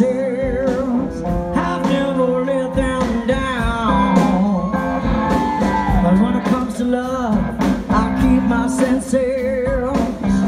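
Live country-rock band playing, with a woman singing lead over electric guitars and a drum kit; her held notes waver with a wide vibrato.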